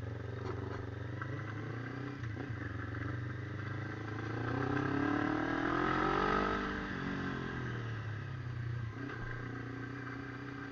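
Honda CB motorcycle engine running while riding. Its pitch and loudness rise to a peak about six seconds in, then ease back down.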